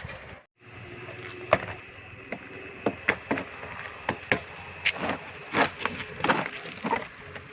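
A series of irregular light knocks and clicks, as of hard parts being handled and set against each other, over a faint steady high whine.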